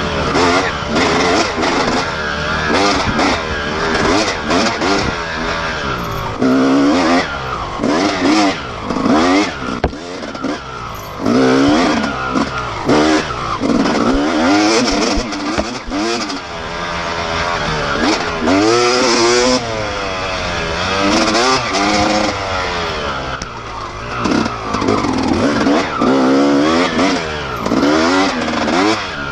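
Dirt bike engine heard from on the bike, revving up and falling back over and over as the throttle is worked through a tight wooded trail. The pitch rises and drops every second or two.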